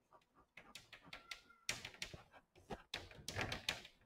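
Chalk writing on a blackboard: irregular taps and short scratchy strokes as a formula is written, with a brief thin squeak a little over a second in.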